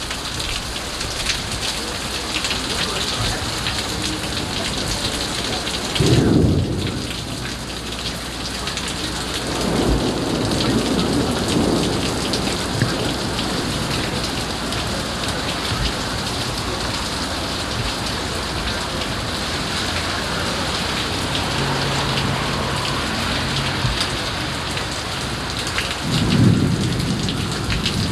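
Heavy rain pouring steadily in a severe thunderstorm, with thunder rumbling three times: a sharp, loud one about six seconds in, a softer rumble a few seconds later, and another near the end.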